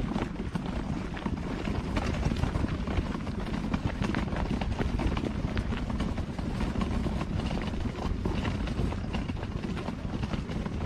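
Footsteps crunching on a gravel trail, a run of scattered clicks over a steady low rumble.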